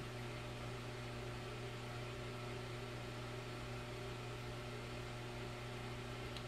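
Steady low electrical hum with a faint hiss and no other events: room tone.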